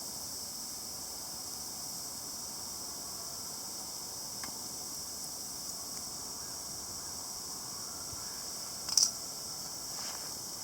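Steady, high-pitched chirring of insects, with a single sharp crack about nine seconds in.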